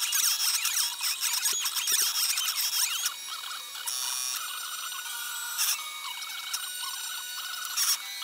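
Stepper motors of a homebuilt CNC machine whining as they drive its axes. For about the first three seconds the pitch sweeps up and down. After that it settles into steadier tones that start and stop every second or so.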